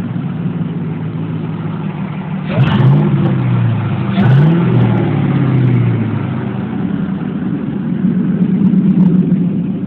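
Supercharged 5.4-litre V8 from a 2002 Ford SVT Lightning, swapped into a 2001 Mustang GT, idling with two blips of the throttle, the revs rising and falling back about two and a half and four seconds in, then settling back to a steady idle.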